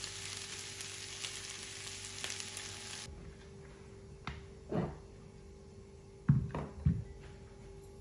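Scrambled eggs with fried potatoes, peppers and tomatoes sizzling in a frying pan with the gas just turned off, stopping abruptly about three seconds in. Then a few light clacks, the loudest about six and a half seconds in, as a ceramic plate is set down on the countertop.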